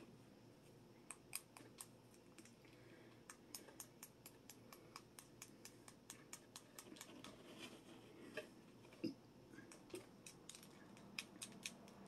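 Faint, irregular light clicks and scrapes, a few a second, from a small gold plastic digging tool picking at a small orange plastic toy ball.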